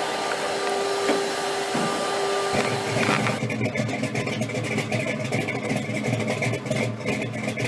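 A car engine idling, with the low rumble growing stronger about three seconds in.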